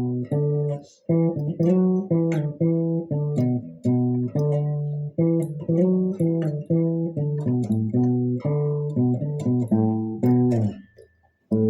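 Guitar intro of picked notes ringing over low bass notes, with a short break about a second in and the notes dying away near the end.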